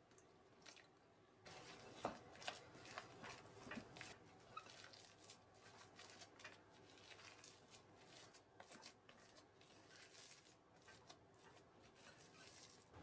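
A spatula mixing mashed potato and milk in a glass bowl: soft, irregular scraping and tapping against the glass, starting about a second and a half in.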